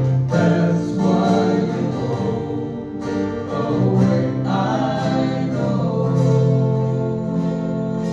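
A small acoustic band playing a song live: acoustic guitars strummed with bass and keyboard, and several voices singing together.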